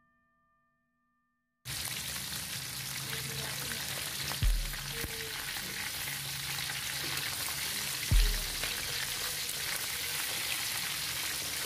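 Whole tilapia frying in hot oil in a wok: a steady sizzle that starts about two seconds in. Two dull thumps come while the fish are turned over.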